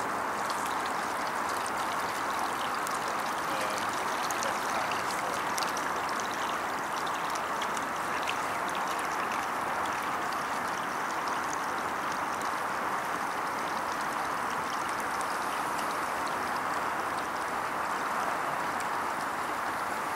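Steady, even rushing noise like running water, unchanging in level, with faint scattered ticks above it.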